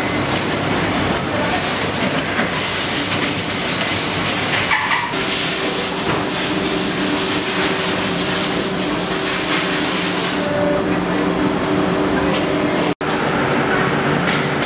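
Shoe-factory machinery running: a dense mix of mechanical clatter and hissing air, with a steady hum joining about five seconds in. The sound cuts out for an instant near the end.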